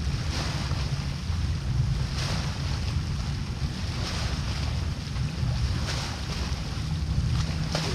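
Wind buffeting the microphone outdoors: a steady low rumble with brief rushes every couple of seconds.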